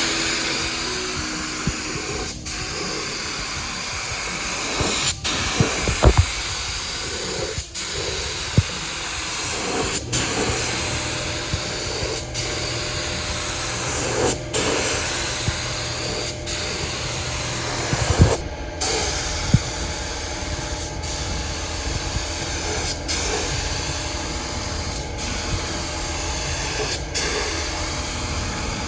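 Air spray paint gun hissing as it sprays base coat onto a car, a steady rush of air and paint broken by short pauses every two to three seconds between passes. A low steady hum joins about ten seconds in.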